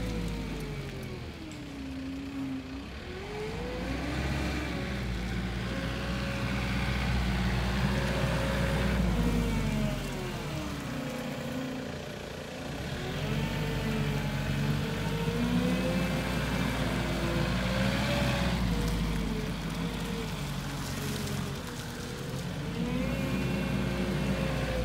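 Cesab Drago 350 forklift's combustion engine running under way, its pitch repeatedly falling and rising again every few seconds as the truck drives and turns.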